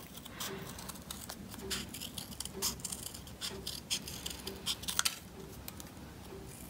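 Small scissors snipping through thin paper: a string of short snips at an uneven pace as a small curved teardrop shape is cut out.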